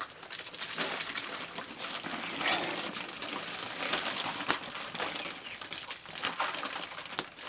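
Wood fire burning in a clay hearth, hissing steadily with many small irregular crackles.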